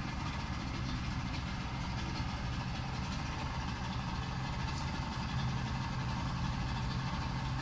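Yamaha 50 hp two-stroke outboard motor idling steadily just after starting, at almost 1500 rpm.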